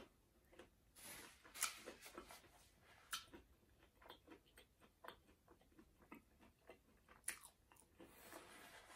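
Faint close-up sounds of a person chewing food with her mouth closed: scattered soft wet clicks and smacks, with a few sharper clicks about one and a half, three and seven seconds in.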